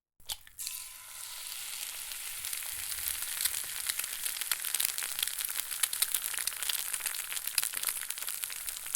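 A couple of sharp clicks, then a steady, dense crackling hiss made of many fine crackles.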